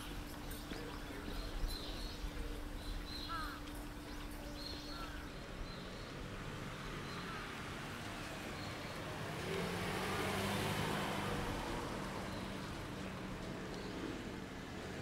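Outdoor ambience with a few short chirps in the first few seconds, then a motor vehicle passing, loudest about ten seconds in and slowly fading.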